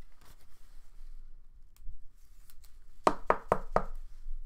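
Four quick hard knocks in a row, about four a second, from a sleeved trading card and its plastic card holder being tapped and handled, with faint plastic rustling and clicks before them.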